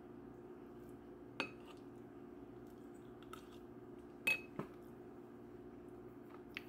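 A spoon clinking against a bowl four times, the loudest clink, about four seconds in, ringing briefly, over a steady low hum.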